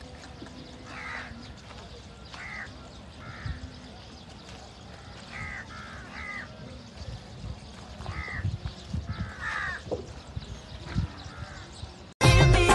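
Crows cawing again and again, short harsh calls about a second apart, over low outdoor background noise. Near the end, loud music cuts in suddenly.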